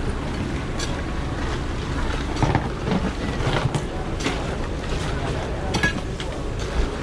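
Steady low rumble of street traffic with wind on the microphone, broken by a few scattered sharp clicks and knocks.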